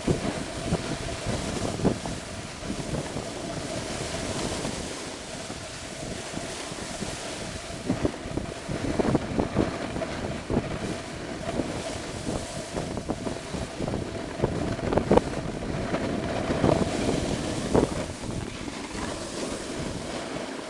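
Wind rushing over the camera microphone during a fast downhill run, with the scrape and chatter of edges carving across hard, tracked-up snow in irregular bursts.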